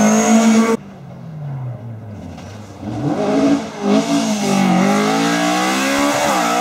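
Rally car engines at full throttle. A Ford Escort Mk2 holds high revs and then cuts off abruptly. A second rally car's engine then comes in quieter and falling, before it rises again from about halfway through. Its revs climb through several quick dips that sound like gear changes, getting louder toward the end.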